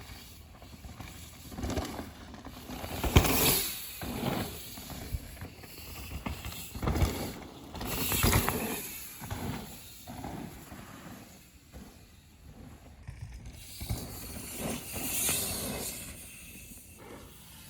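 Electric mountain bike ridden fast down a dirt trail: tyres on dirt, chain and drivetrain rattling, with sharp knocks from bumps and wind on the mic, rising and falling in irregular surges.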